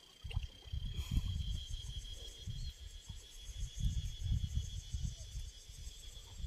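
A steady, high insect drone, cricket- or cicada-like, running through the whole stretch. Under it is an irregular low rumbling, louder at times, that most likely comes from wind on the microphone.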